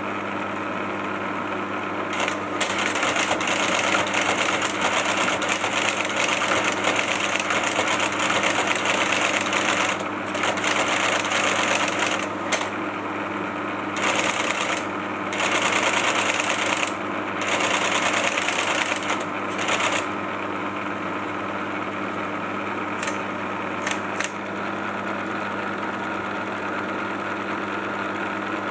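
Friden Flexowriter mechanism chattering rapidly in bursts, stopping and restarting several times, then falling silent about twenty seconds in. Under it runs the steady hum of the running LGP-30 vacuum-tube computer.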